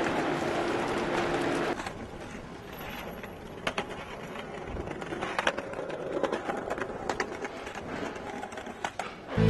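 Background ambience: a steady noisy hum for about the first two seconds, then a quieter background with scattered sharp clicks and knocks.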